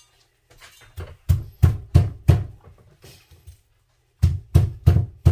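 Heavy chopping blows on a cutting board, a cleaver or big knife cutting through tuna: two runs of about four hard strikes each, about three a second, with a pause between.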